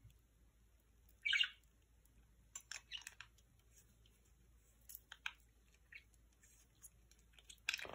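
Budgerigar making soft, scattered chirps and clicks, with one louder chirp about a second in.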